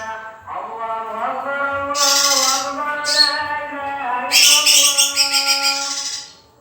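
Young male green leafbird (cucak ijo) singing in bursts of fast, high chattering notes, about two seconds in, briefly at three seconds, and longest from about four to six seconds in. Underneath is background music of held tones.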